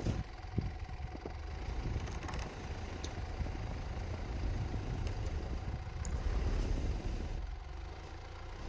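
Mitsubishi Pajero's 4M41 3.2-litre turbodiesel four-cylinder running as a steady low rumble while the SUV creeps forward through deep snow, towing a snowbound trailer on straps.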